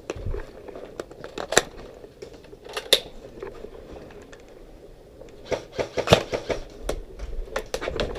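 Airsoft guns firing sharp single snapping shots, scattered at first, then a quick cluster of shots about five and a half to six and a half seconds in.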